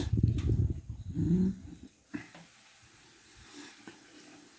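Close-miked chewing of a mouthful of soft corn cake: wet, irregular mouth noises for about the first two seconds, with a short hummed 'mm' a little after a second in, then only faint chewing.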